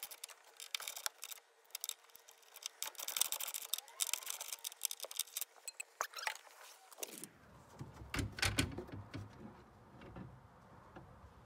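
Small metallic clicks and rattles of hand tools working the bolts on a power liftgate motor bracket. About seven seconds in the sound changes to duller knocks and handling noise.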